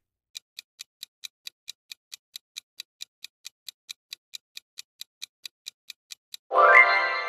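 Clock-ticking countdown sound effect, about four and a half ticks a second, then a loud bright chime near the end that rings on and fades.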